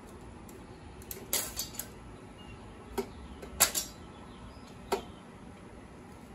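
About half a dozen sharp clicks and knocks of a tape measure and a pine 2x4 being handled on a miter saw's table, the loudest about three and a half seconds in, over a steady low background noise. The saw is not running.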